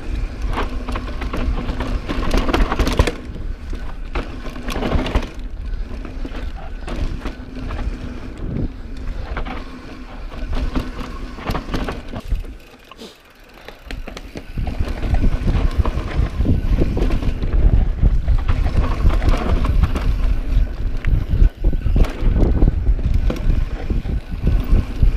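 Mountain bike descending a loose dirt forest trail at speed: tyres rolling through the loam and the bike clattering over bumps. About twelve seconds in the noise drops away for a second or two, then the rolling comes back louder.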